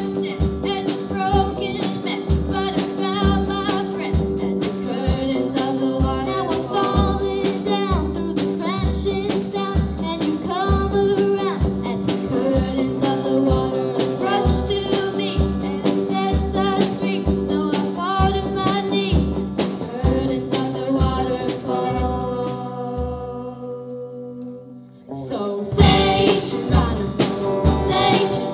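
A school rock band playing live: two girls singing lead over electric guitar, keyboard and drum kit, with a steady kick-drum beat. Near the end the band drops away to a fading held chord, then comes back in loud and full about three seconds before the end.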